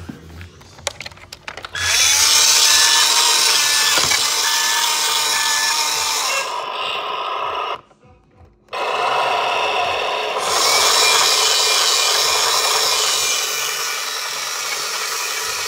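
Battery-powered toy CAT wheel loader running, its small electric drive motor and gears whirring loudly in two long runs with a brief stop just before the middle. A series of short beeps sounds during the first run.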